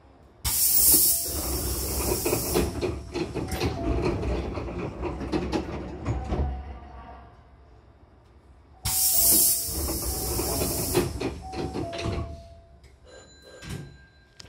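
Compressed air hissing loudly from a Hankyu Takarazuka Line train's air-operated door gear, twice, about half a second in and again about nine seconds in, each burst lasting a few seconds with knocks through it, as the pneumatic sliding doors close.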